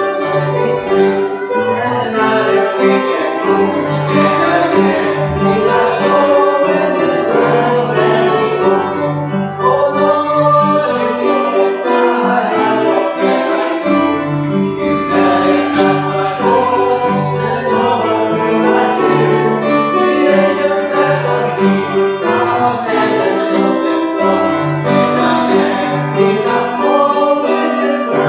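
Gospel song: two male voices singing in duet over instrumental accompaniment.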